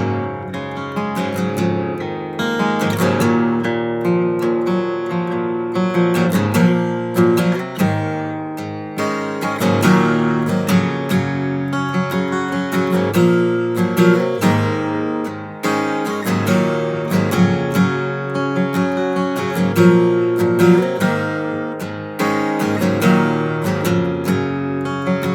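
Martin D-28 dreadnought acoustic guitar played unaccompanied: strummed riffs with frequent sharp string attacks, on 13-gauge D'Addario EXP strings tuned down a half step to E flat.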